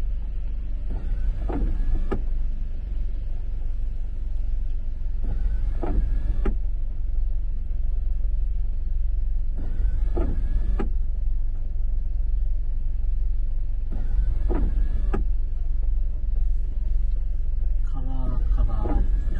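Windshield wipers on an intermittent setting, sweeping across the rain-wet windshield about every four seconds, each sweep a short whine from the wiper motor and blade. Under it runs the steady low hum of the car cabin at idle.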